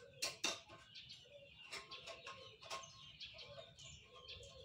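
A few sharp knocks and clicks from the handlebar stem being worked into a balance bike's frame, the loudest two about half a second in, with birds chirping faintly in the background.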